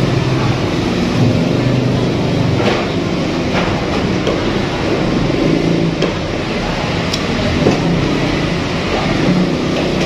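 Steady, loud rushing background noise with a low hum. A few faint clicks and smacks from eating by hand with the fingers are heard over it.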